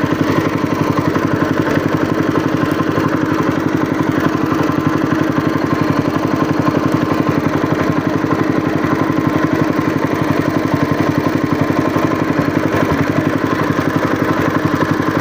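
Small boat's engine running steadily at low trolling speed, a fast, even pulsing hum that holds unchanged throughout.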